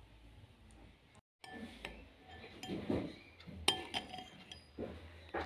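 A spoon clinking against a bowl a few times as thick spinach-and-paneer gravy is served out, with soft scraping of the gravy between the clinks.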